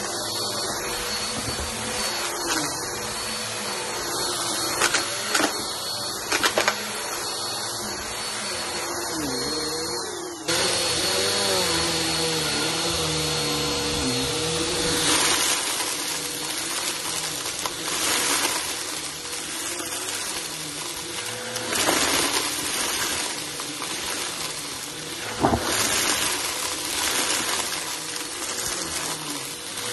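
Bissell Helix upright vacuum cleaner running over a shag rug: a steady motor whine over a rushing suction noise, with a few sharp clicks from grit being sucked up. The sound shifts abruptly about a third of the way through.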